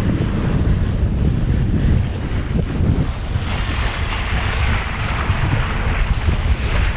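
Wind buffeting the microphone on a wooden gaff-rigged sailboat under sail, with the hiss of water rushing along the hull joining in from about three seconds in.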